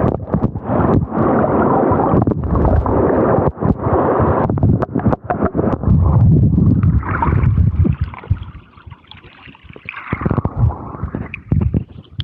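Rushing, gurgling water close to the microphone, full of crackling splashes, dropping quieter about eight seconds in.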